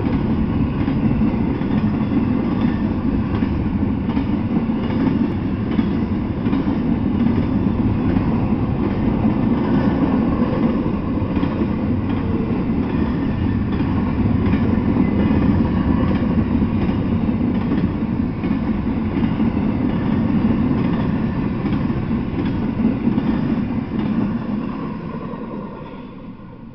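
Double-stack intermodal freight train's well cars rolling past close by, a steady loud rumble of steel wheels on the rails. The noise fades away near the end as the last car clears.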